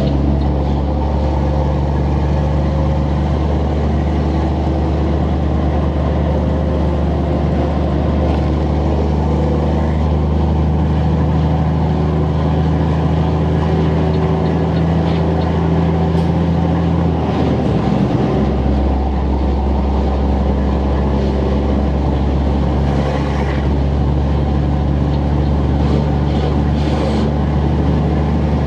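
Volvo FH12 truck's straight-six diesel engine running steadily through a loud open exhaust. The engine note briefly breaks and shifts about two-thirds of the way in, then settles back into a steady drone.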